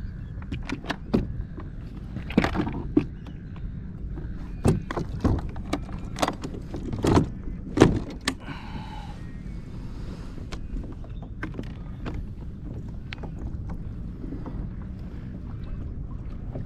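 Sharp knocks and clunks of gear handled on a fishing kayak, over steady wind and water noise. A short squeak comes about halfway through, and after it only the wind and water noise with faint ticks remain.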